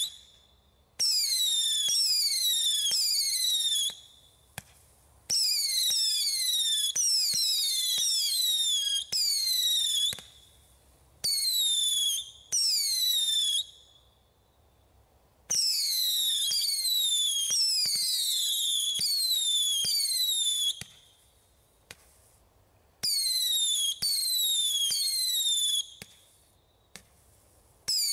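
Bright Star Fireworks Screaming Ion Storm 200-shot barrage firing screaming mini missiles: many overlapping high whistles, each falling in pitch, in rapid volleys of a few seconds broken by pauses of a second or two.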